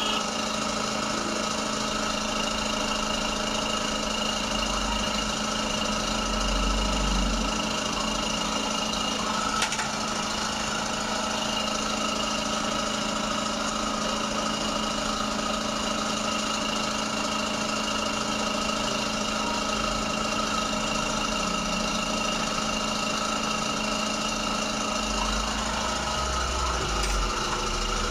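Dental surgical suction unit running with a steady motor hum and whine while its tip draws blood and saliva from a wisdom-tooth extraction site.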